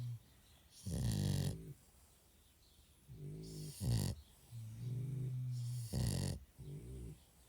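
Bulldog snoring in its sleep, a buzzing snore with each breath, roughly every two seconds.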